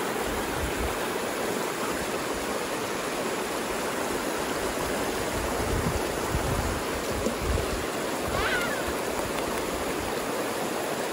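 Shallow creek running steadily over rocks.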